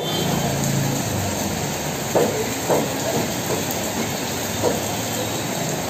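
Heavy rain pouring steadily on a street, an even rushing hiss, with a few short knocks now and then.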